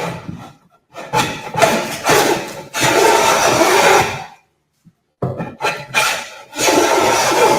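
Long-soled jointer plane shaving the edge of a board clamped upright in a board jack: a short scrape at the start, then two long cutting strokes of about three seconds each.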